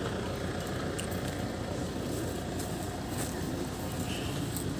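Steady outdoor background noise with a faint murmur from a gathered crowd.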